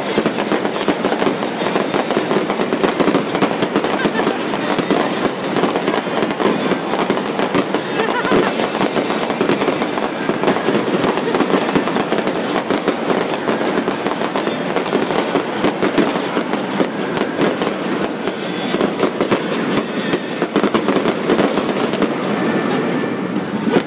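Fireworks display going off without a break: a dense, continuous run of bangs and crackles, many to the second.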